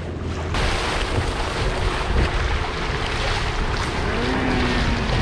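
Outrigger boat under way: wind rushing over the microphone and water splashing along the outrigger float, with a low rumble underneath, starting abruptly about half a second in after a quieter low hum.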